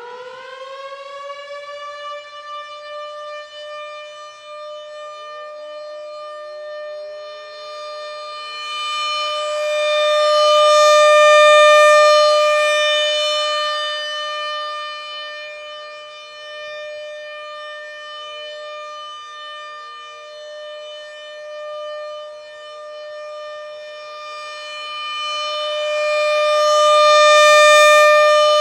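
American Signal rotating outdoor warning siren sounding a steady alert. Its note has just spun up, and a second, lower note rises in to join it about five seconds in. The sound swells loud twice as the turning horn sweeps past, then fades between.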